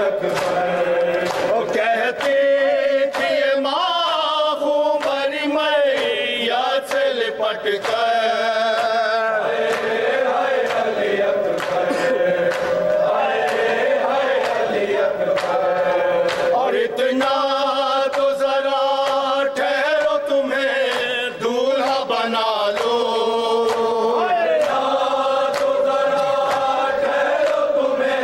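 Men's voices chanting an Urdu noha, a Shia mourning lament, with long held, wavering notes. Hands slapping chests (matam) keep a steady beat of roughly one slap a second beneath the chant.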